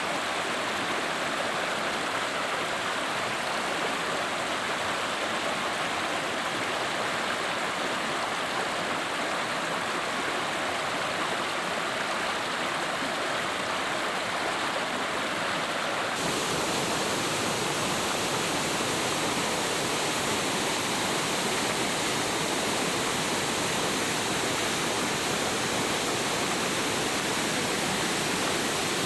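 Steady rush of heavy storm rain and running water. About halfway through, the sound changes abruptly to a fuller, slightly louder rush.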